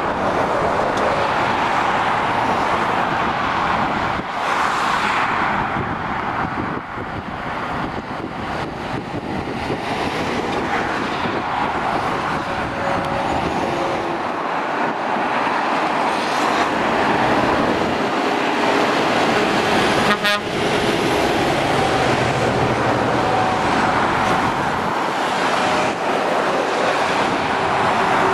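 Steady dual-carriageway traffic noise: tyres and engines of passing lorries and cars. A brief rapid crackle about twenty seconds in.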